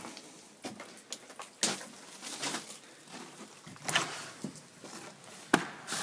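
Footsteps and a front entry door being opened and gone through: scattered knocks and scuffs, with one sharp knock near the end, the loudest.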